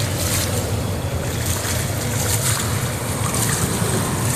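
Floodwater splashing and washing as vehicles drive through a flooded road, a steady rush of water over a low engine hum.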